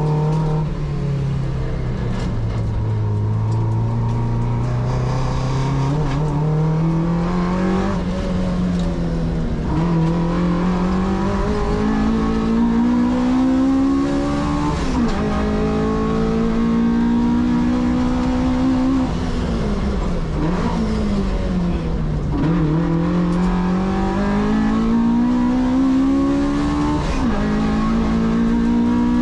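Onboard sound of a car with a J160 six-speed gearbox being driven hard on a timed run. The engine climbs in pitch through each gear and falls at each shift, and several times dips sharply and recovers as the driver brakes and changes down.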